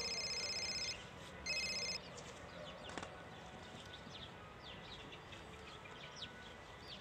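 Mobile phone ringtone: a steady electronic multi-tone ring that stops about a second in, sounds again briefly, then stops. After it, birds chirp faintly.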